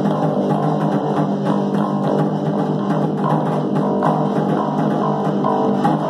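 Live band jamming a riff: electric bass guitar and guitar playing over a lone snare drum struck with sticks in a steady rhythm.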